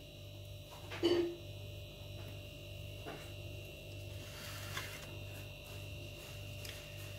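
Faint steady electrical hum with a low throb that pulses about two to three times a second, and one short sound about a second in.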